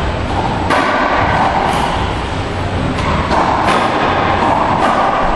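Racquetball rally: the hollow rubber ball cracking off racquets and the court walls four times, roughly a second apart, each hit echoing in the enclosed court.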